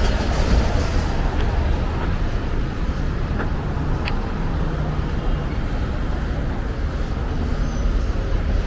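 Street traffic: passing cars and other vehicles, with engine and tyre noise making a steady low rumble. A couple of short faint clicks come about three and four seconds in.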